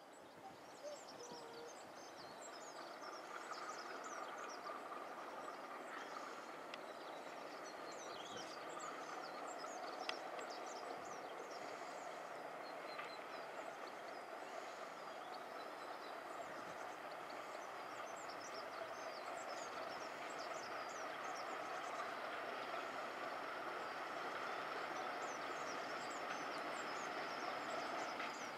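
Diesel locomotive hauling a passenger train, approaching from a distance: the engine drone grows slowly louder. Birds chirp over it.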